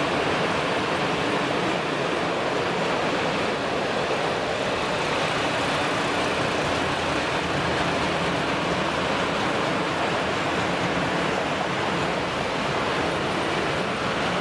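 Long freight train of loaded open coal wagons rolling past on the track: a steady, even rolling noise of wheels on rail, with no distinct beats or clicks.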